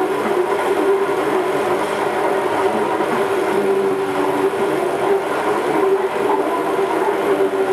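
A steady engine drone with a constant hum, unchanging in level throughout.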